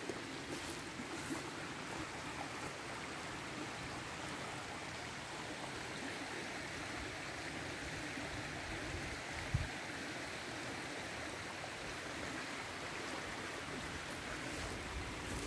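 Shallow rocky stream rippling steadily over stones. A single brief low thump comes about nine and a half seconds in.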